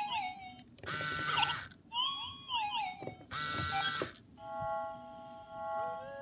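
Sega I-Dog robot toy playing its electronic sick-mood sounds: short buzzy bursts alternating with quick rising-and-falling beep glides. About four seconds in, this gives way to a held, reedy electronic chord with a pulsing high tone.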